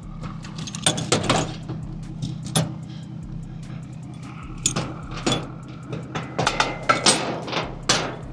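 A vehicle engine idling steadily, under repeated sharp metallic clinks and clatter, busiest about a second in and again near the end.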